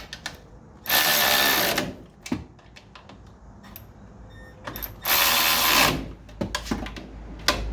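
Power impact wrench driving nuts on the 4Runner's front strut assembly in two loud bursts of about a second each, about one second and five seconds in, with metal tool clinks in between.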